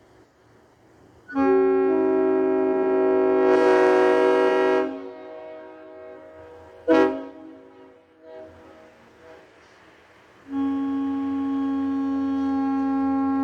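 Train horn mounted on a truck, sounded in three blasts: one of about three and a half seconds, a short toot about seven seconds in, then a long blast starting near the end. Several notes sound together as a chord.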